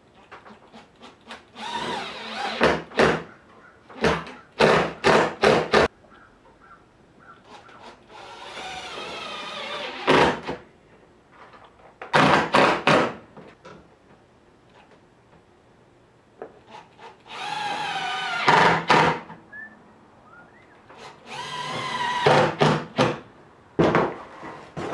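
Cordless drill running in four short bursts, drilling into an aluminum sheet laid on a plywood bench, its pitch wavering as the bit loads. Sharp knocks and clatters come between the bursts, including a quick run of them a few seconds in.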